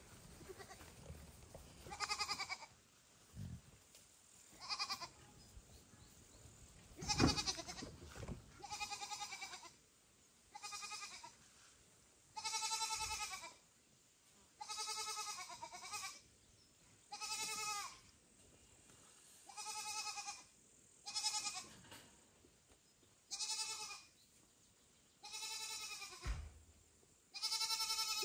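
A kitten meowing loudly over and over: about a dozen cries, each under a second long, coming roughly every two seconds.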